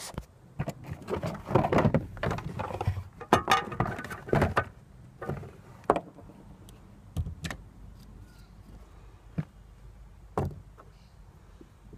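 Hands handling the plastic locking ring of a VW Golf Mk4's in-tank fuel pump: a close, busy run of clicks, scrapes and rustling for the first few seconds, then scattered single knocks as the ring and tools are set down.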